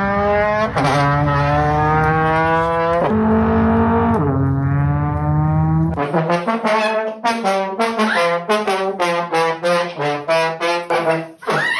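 Music: long held notes that slide downward for about six seconds, then a quick run of short notes.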